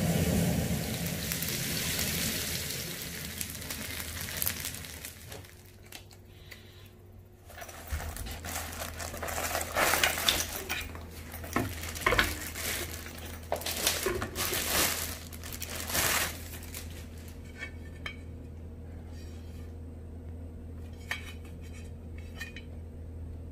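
Sliced pork belly sizzling on a griddle over a gas camping stove for the first few seconds. This gives way to plastic wrapping crinkling and crackling as a new mini griddle is unwrapped and handled, loudest in a run of sharp crackles in the middle, with fainter light taps and rustles near the end.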